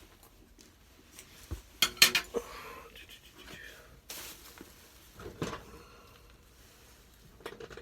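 Hard metal objects clinking and clattering as someone hunts for a Phillips screwdriver. The loudest burst of clinks comes about two seconds in, with a short rustle and a few lighter knocks later.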